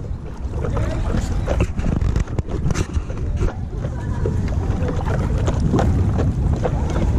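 Wind rumbling on an action-camera microphone over a paddleboard, with irregular splashing and lapping as the paddle dips into the water.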